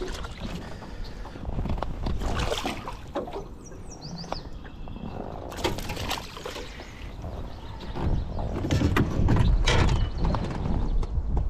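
Hooked northern pike thrashing and splashing at the water's surface in several uneven bursts. The loudest, heaviest splashing and knocking comes near the end as the fish is lifted from the water.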